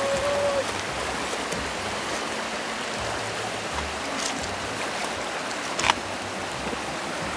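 Shallow river running over rocks, a steady rush of water. A brief pitched call right at the start and a single sharp click about six seconds in.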